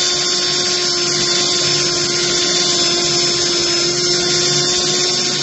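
Electric drill running at a steady pitch as it drills the head off a mushroom rivet in a caravan's metal cladding, one continuous run without a break.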